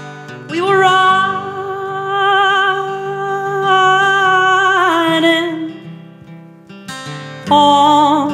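Background music: acoustic guitar with a singing voice holding one long wavering note for about five seconds, then starting another phrase near the end.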